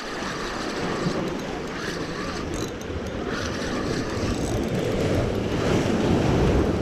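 Surf surging and breaking on shoreline rocks, with wind buffeting the microphone, building to its loudest as a wave crashes over the rocks near the end. Under it, a Shimano Sedona spinning reel is cranked, reeling in line.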